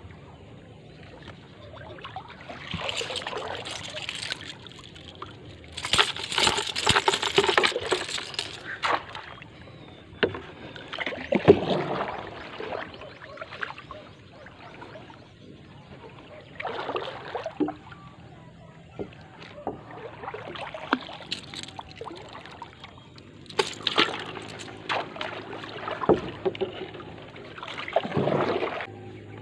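Paddle strokes in the water beside a wooden dugout canoe: a swishing splash every few seconds, some much louder than others.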